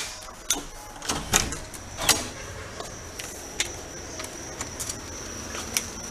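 Scattered clicks and knocks, like a phone being handled and carried, over a steady high-pitched insect trill that comes in about halfway through.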